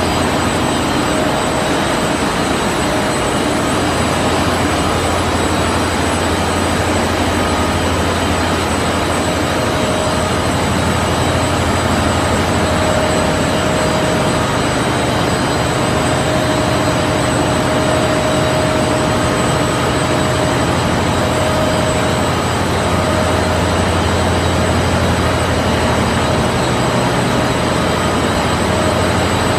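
Open-width washing machine for dyed cotton knit fabric running: a loud, steady machine noise with a low hum and a constant high whine.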